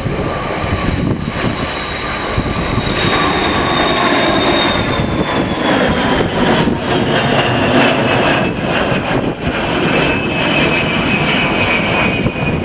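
Large jet aircraft flying past, its engines running with a loud roar and a high whine that falls slowly in pitch as it passes.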